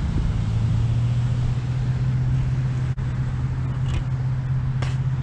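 An engine running steadily, a loud low drone that drops slightly in pitch just after the start, with a few short high clicks near the end.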